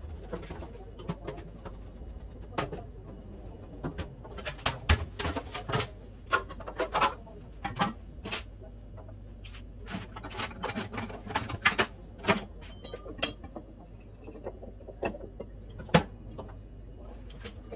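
Irregular sharp clicks and knocks, some with a short metallic ring, as tools and parts are handled during a washing machine repair, over a steady low hum.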